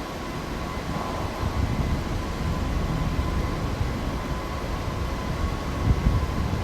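Steady low mechanical rumble of workshop background noise with a faint constant whine, and a single short knock near the end.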